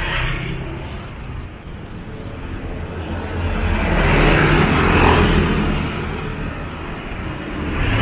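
A motor vehicle passing close by: its engine and road noise swell to a peak about halfway through and fade, and another approaches near the end.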